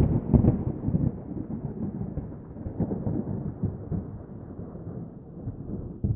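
Intro sound effect: a few deep booming hits near the start that give way to a low, thunder-like rumble, rolling and slowly dying away.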